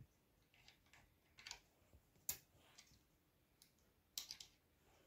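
A few faint, widely spaced clicks from a battery lead's ring terminal being fitted by hand onto a terminal stud of a battery cut-off switch.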